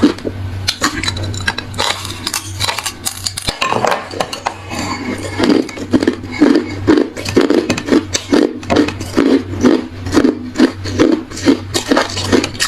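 Close-miked crunching and chewing of hard ice in the mouth: scattered crackling at first, then a steady rhythm of sharp crunches about two to three a second from about five seconds in.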